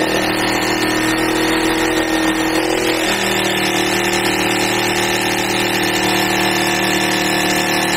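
Electric jigsaw running and cutting through the countertop, trimming the cutout for the stove wider. Its motor pitch steps down slightly about three seconds in.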